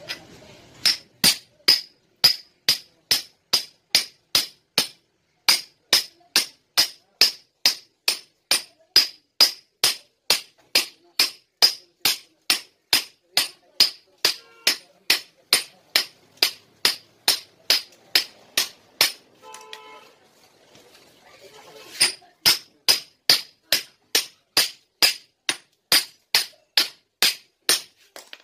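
Steel pipe used as a drift, driven down again and again onto a flanged bearing to seat it on a rear axle shaft: sharp metal-on-metal clinks, about two a second, with a pause of a few seconds about two-thirds of the way through.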